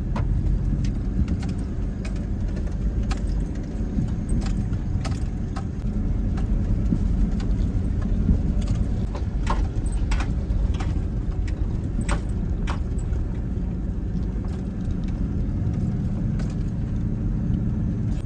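Pickup truck creeping along a rough gravel trail, heard from inside the cab: a steady low engine and road rumble with frequent small clicks and rattles as the truck jolts over stones.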